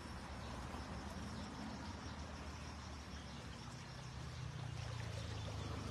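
Shallow stream water rushing steadily over stones around the wader's legs and basket, with a faint high insect trill above it.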